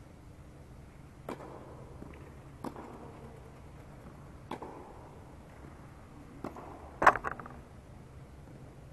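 Tennis ball struck back and forth by rackets during a rally, sharp pops every one and a half to two seconds with a short echo. About seven seconds in comes the loudest, closest knock, followed by a quick rattle of smaller impacts, like the ball bouncing to rest. A steady low hum runs underneath.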